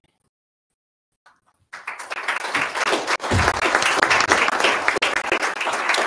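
An audience applauding. The clapping starts just under two seconds in, after a short silence, and holds steady.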